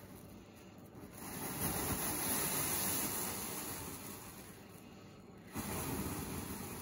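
Whooshing rush of a powder-and-metal-filings mixture blown into a burner flame and burning as a sparking fireball, in two surges: one building from about a second in, and a second starting suddenly near the end.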